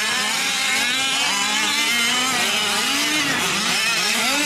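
Several 5th-scale gas RC trucks racing, their small two-stroke engines overlapping, each rising and falling in pitch as it revs and backs off.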